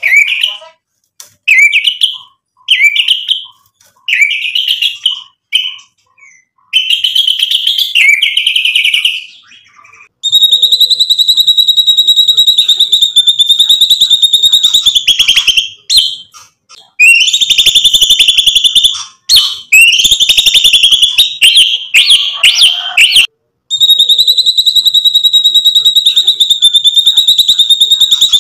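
White-rumped shama (murai batu) singing. First comes a run of short, separate whistled phrases. From about ten seconds in it switches to long, fast rattling trills, the 'tembakan' bursts, each held for several seconds with short breaks between them.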